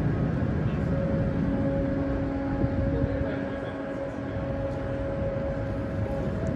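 Steady low rumble of the cruise ship Le Dumont d'Urville's engines and onboard machinery as her hull passes close by, with a steady hum running through it.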